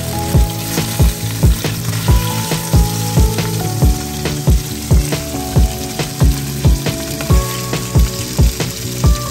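Background music with a steady beat of about two drum thumps a second and a changing melody, over the steady sizzle of whole red tilapia frying in oil in a wok.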